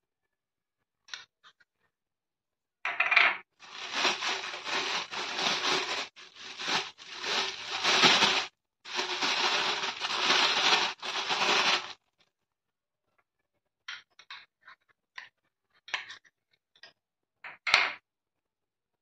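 Thin polythene milk pouch crinkling and rustling as hands fill it with rice batter and squeeze it, in a long crackly stretch from about three to twelve seconds in. After that come a few scattered light rustles and taps, with one sharp tap near the end.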